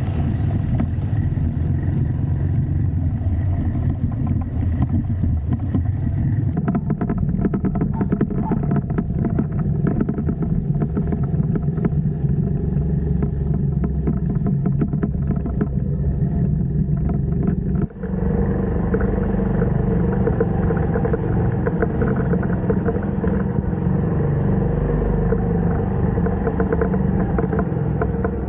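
TVS XL100 moped's single-cylinder four-stroke engine running while riding, a steady rumble mixed with road noise. The sound breaks off for an instant about two-thirds of the way through and goes on slightly changed.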